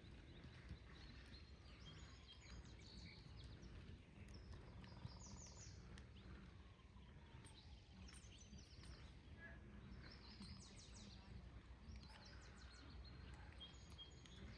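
Near silence: faint outdoor ambience with a low steady rumble, through which small birds chirp in several short, rapid high trills.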